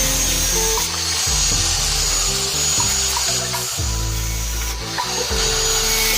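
A handheld power tool running with a steady high whine, over background music.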